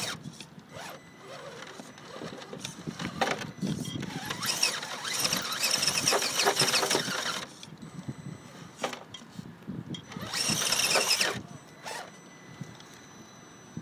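Axial SCX10 scale rock crawler's brushed electric motor and transmission gears whirring in two bursts of throttle, a longer one about four seconds in and a short one about ten seconds in. Scattered knocks come from the tyres and chassis hitting rock as it climbs.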